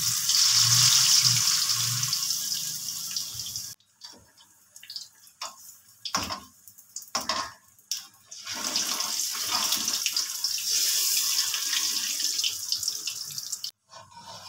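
Egg-dipped potato patty sizzling as it deep-fries in hot oil in a karahi, a steady frying hiss. In a quieter stretch in the middle, a few short knocks are heard before the sizzling comes back.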